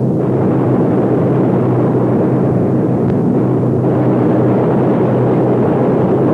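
B-17 bomber's radial piston engines droning steadily: a loud, even drone that holds one pitch throughout.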